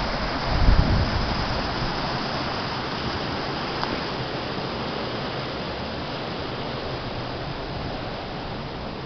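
Mountain stream cascading over granite boulders: a steady rush of whitewater that slowly grows quieter. A brief low rumble comes about a second in.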